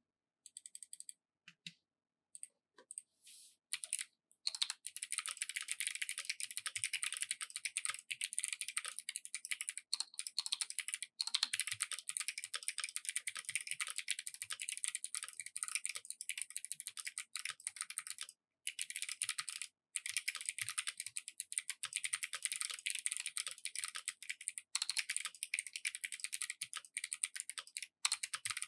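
Typing on a custom 65% mechanical keyboard with Kailh Box Jade clicky switches, an FR-4 plate and PBT keycaps. A few scattered keypresses at first, then from about four seconds in a fast, dense run of sharp key clicks with a few brief pauses.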